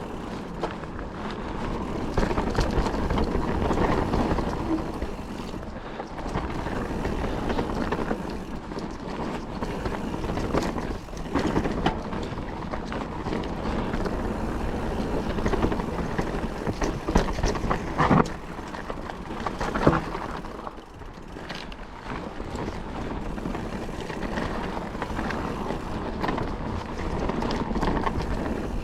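Mountain bike riding fast over dry, loose trail: tyres on dirt and gravel, wind on the helmet-mounted microphone, and the bike clattering over bumps, with sharper knocks about 18 and 20 seconds in.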